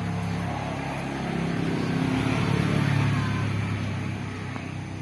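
Motor vehicle engine passing by, growing louder to a peak about halfway through, then fading away.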